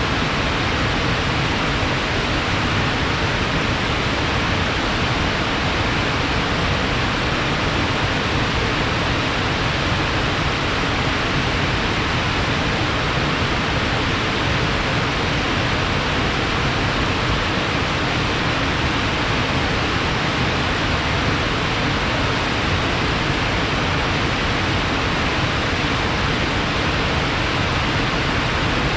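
Fast-flowing water rushing steadily, a stream running strong and swollen after rain.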